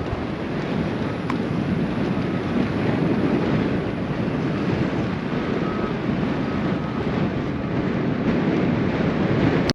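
Wind rushing over a bike-mounted action camera's microphone while riding a road bike, a steady, fluttering noise heaviest in the low range.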